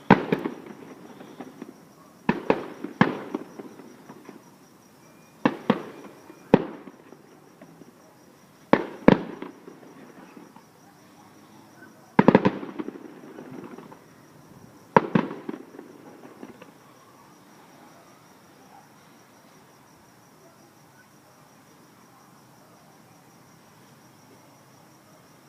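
Fireworks shells bursting: about nine sharp bangs, some in quick pairs, every few seconds, each followed by a rolling echo. They stop about 16 seconds in.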